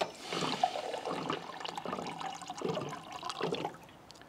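Water sloshing and splashing inside a water bottle as it is picked up and handled, in uneven spurts that die away near the end.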